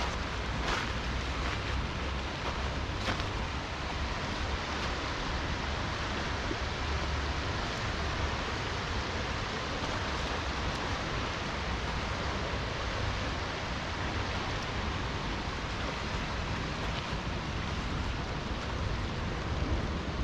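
Steady rush of flowing river water mixed with falling rain, with a low rumble of wind on the microphone and a couple of faint ticks in the first few seconds.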